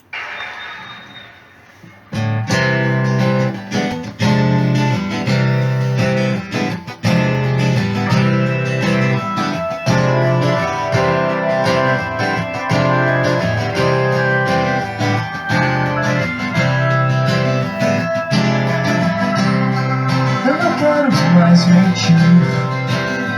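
Recorded song with strummed guitar and bass, played through the Panasonic SA-AK24 amplifier board under test. It starts faint and comes in loud about two seconds in.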